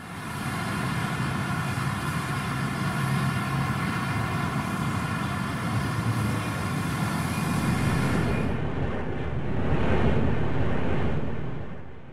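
Jet airliner engines climbing out overhead: loud engine noise with a steady whine of several tones. About eight and a half seconds in the sound turns duller, swells, then fades near the end.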